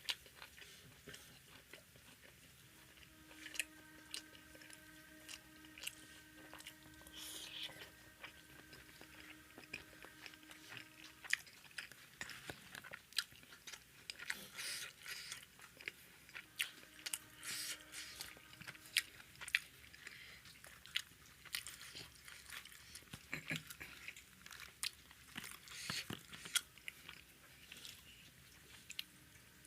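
A person chewing and biting up close while eating tandoori roti and naan with masala egg curry: irregular mouth clicks and smacks. A faint steady hum sounds behind it for a stretch early on and again briefly later.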